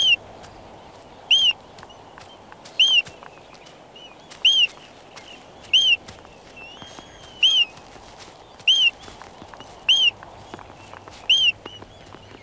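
Laysan albatross chick begging for food with a series of loud, short, shrill whistles, one about every one and a half seconds.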